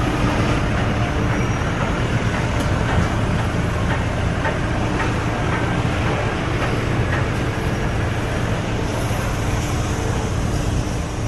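GX218 drum wood chipper, driven by a 110 kW electric motor, running steadily with a constant hum and scattered sharp ticks.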